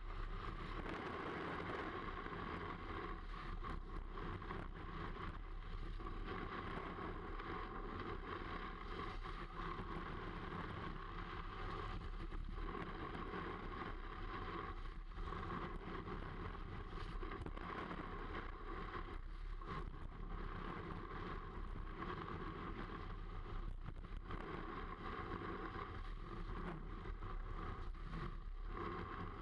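Snowboard sliding and carving over groomed snow, heard close up from a camera on the board's nose: a steady rushing hiss of the base and edges on the snow, mixed with wind.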